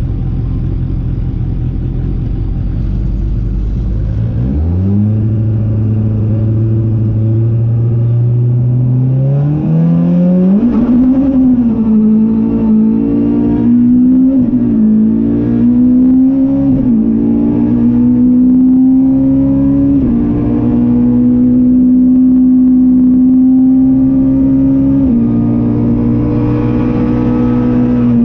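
Ford Fiesta R200 rally car's engine heard from inside the cabin: idling at the stage start, then launching hard about four seconds in, the revs climbing and staying high with several quick dips and recoveries as it accelerates away.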